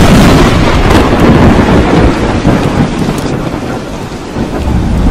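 Close lightning strike: a sudden, very loud thunderclap that rolls straight on into heavy rumbling thunder, with a few sharp crackles, easing slowly under rain before it cuts off abruptly near the end.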